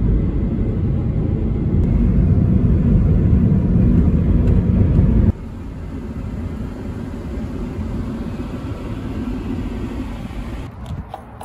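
Road noise inside a moving car: a loud, even low rumble at highway speed that drops abruptly about five seconds in to a quieter rumble of slow driving on a residential street.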